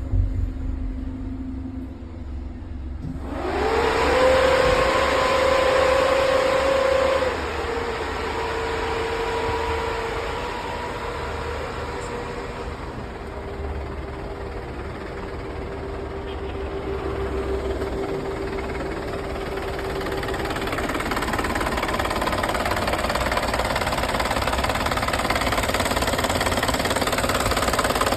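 Hyundai Elantra's air conditioning switched on with the engine running. About three seconds in, a whine glides up and holds steady together with a rush of air from the blower, over the engine running underneath.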